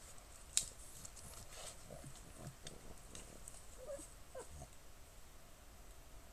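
Pug giving a few short grunts that fall in pitch. About half a second in a match is struck with a sharp scrape, the loudest sound.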